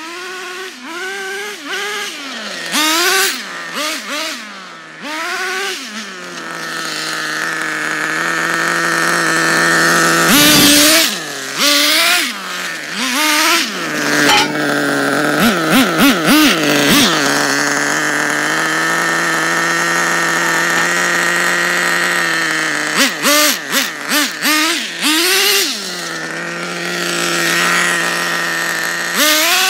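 Redcat Tornado S30 nitro RC buggy's two-stroke glow engine revving: quick throttle blips up and down at first, then holding steady high revs for a long stretch. The high revs are broken by several rapid blips and a few more revs near the end. The exhaust gasket is blown and spraying fuel, and the engine sounds horrible.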